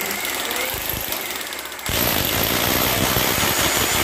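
Electric hammer drill boring into a plastered masonry wall, its motor running with a rapid hammering rattle. It gets louder and heavier about two seconds in.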